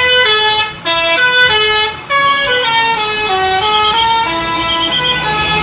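School bus musical horn playing a tune, one note after another, in three phrases with brief breaks about a second and two seconds in.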